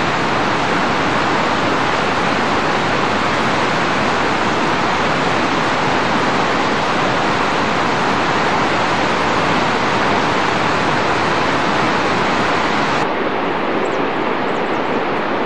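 Steady rushing of the upper Ganga (Bhagirathi) river, a dense unbroken roar of fast water; it turns a little duller about thirteen seconds in.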